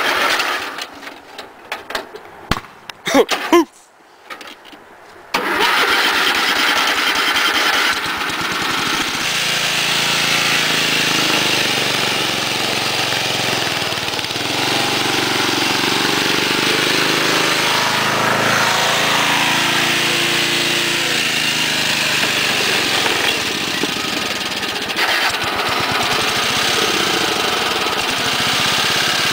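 Sabre lawn tractor's Briggs & Stratton engine. After a few seconds of scattered clicks and knocks, it comes in abruptly about five seconds in and runs on steadily, its pitch rising and falling.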